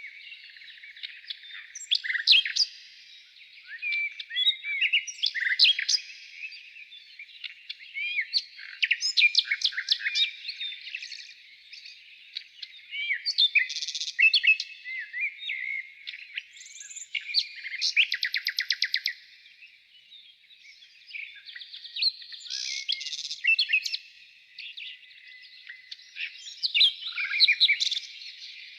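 Several songbirds singing at once, a chorus of overlapping chirps, short gliding whistles and fast rattling trills that rise and fall in bursts.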